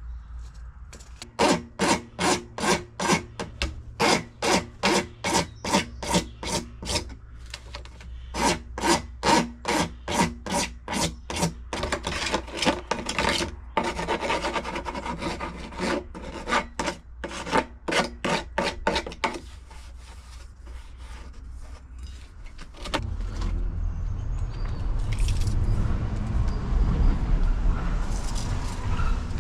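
Hand sawing in quick back-and-forth strokes, about three a second, in three spells with brief pauses, stopping about two-thirds of the way through. A steady low rumble starts near the end.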